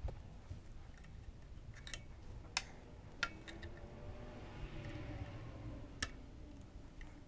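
A few sharp clicks and taps of hand tools and small engine parts being handled during workbench assembly, over a faint low hum.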